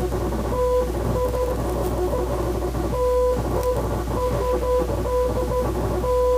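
Morse code signal: a single steady beep keyed on and off in a pattern of short and long beeps, over music.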